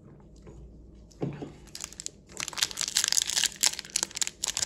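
Foil wrapper of a Pokémon booster pack crinkling as it is torn open by hand. The crackling starts about two seconds in and gets louder.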